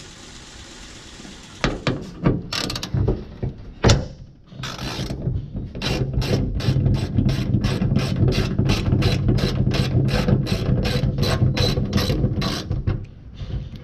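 Hand ratchet wrench backing out a bolt: a few clicks and a knock, then a steady run of ratchet clicks, about three a second, that stops near the end.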